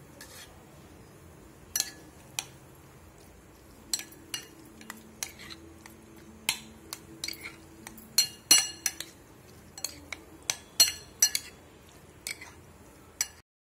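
Steel spoon stirring grated beetroot into yogurt in a bowl, clinking and scraping against the bowl in irregular sharp clicks. The clicks come thicker and louder in the middle, and the sound cuts off abruptly near the end.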